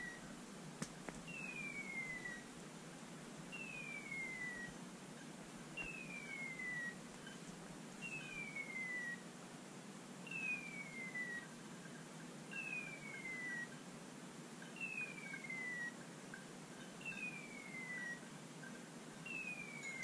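A dog's beeper collar sounding its electronic raptor-like chirp: a single falling whistle about a second long, repeated evenly about every two seconds. This steady repeat is typical of a setter's beeper signalling that the dog has stopped and is on point.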